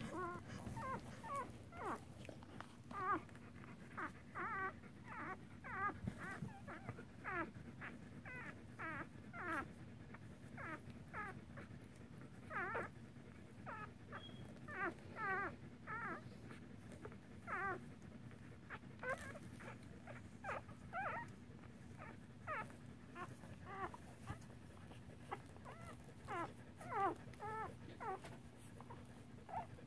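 Newborn standard poodle puppies squeaking and whimpering: short, thin, high cries that bend in pitch, one after another about once or twice a second.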